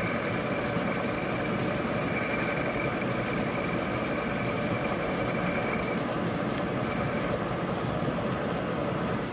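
Milling machine spindle running with a boring head cutting out a hole in an aluminium arm, a steady machining noise. A thin high whine fades about six seconds in.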